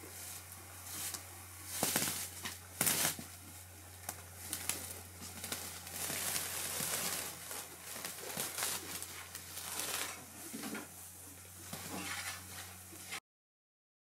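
Loose hay rustling and crunching as it is pulled from a bale by hand and pushed along the floor with a long-handled fork, with a few sharp knocks, over a steady low hum. The sound cuts off near the end.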